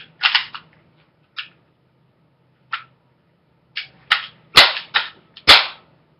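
Crosman Pumpmaster pneumatic BB gun being worked and fired: a string of sharp clicks and snaps, with the two loudest cracks about four and a half and five and a half seconds in.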